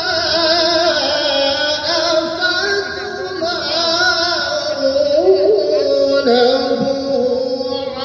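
Qur'an recitation chanted melodically by a qari: a single voice holding long, ornamented notes that waver and glide in pitch.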